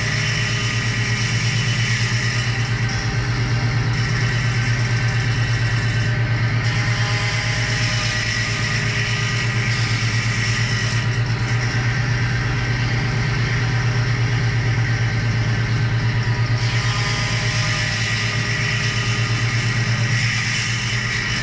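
A motor-driven machine running steadily, with a strong low hum and a fast even pulsing. Its higher hiss drops away and returns every few seconds.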